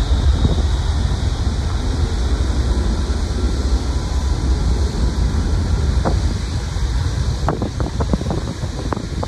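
Low rumble of an Airbus A320neo's jet engines during departure, fading slightly, heavily mixed with wind buffeting on the microphone and a few knocks in the second half.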